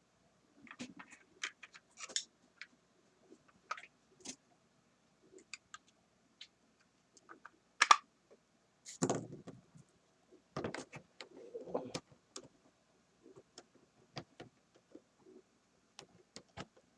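Scattered small clicks, taps and knocks at irregular intervals from a model train locomotive being handled, its plastic body shell and parts fitted together, with the loudest knocks about eight and nine seconds in.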